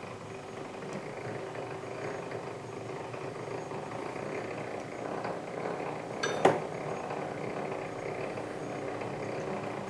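Hand-cranked model walking-beam mechanism running steadily, its roller chain and gears turning, with one sharp metallic clink about six and a half seconds in.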